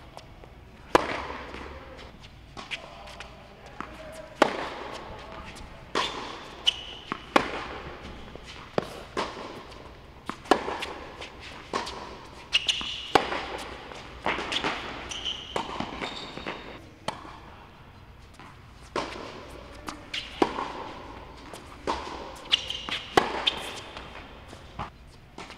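Tennis rally on an indoor hard court: repeated sharp racquet-on-ball hits and ball bounces, each echoing in the hall, irregularly spaced every second or so. Short high squeaks of tennis shoes on the court come between some of the hits.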